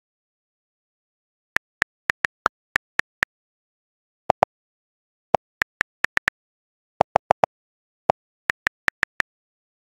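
iPad on-screen keyboard key clicks as text is typed: short, sharp taps in quick runs with silence between them. Among them are a few lower-pitched clicks where letters are being deleted.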